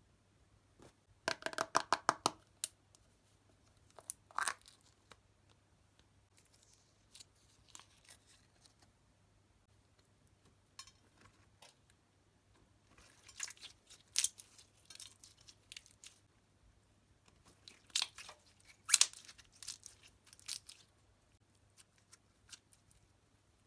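Close crackling, crunching and tearing from slime-making materials being handled, in bursts of rapid clicks: a dense crackly run near the start, then scattered shorter bursts with quiet stretches between.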